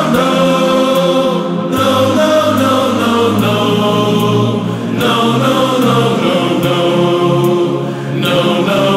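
Background music with sustained layered chords that change every couple of seconds.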